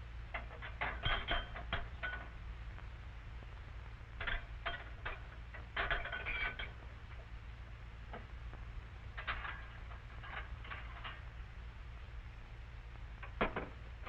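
China cups, plates and glass tumblers clinking against each other and against the wire racks of a top-loading dishwasher as they are set in place, in several short clusters of clinks, some ringing briefly. A steady low hum of an old film soundtrack lies under it.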